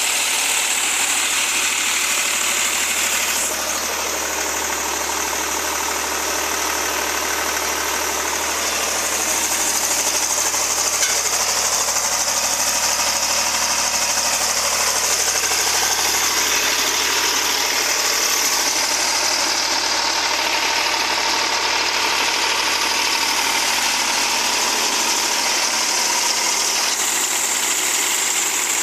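Air-cooled Eicher three-cylinder diesel engine running steadily, driving a generator alternator.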